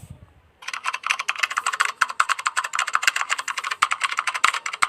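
Typewriter sound effect playing back: a rapid, unbroken run of typewriter key clacks, starting about half a second in and stopping near the end.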